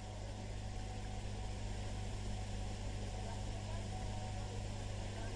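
Steady low electrical mains hum with a faint hiss over it.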